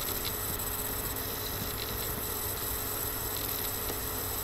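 Steady low hum and hiss of the recording's background noise, with no other sound.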